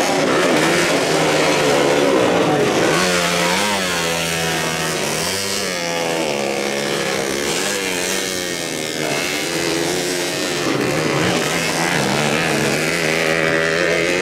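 Motocross bike engine revving, its pitch rising and falling over and over as the throttle is worked.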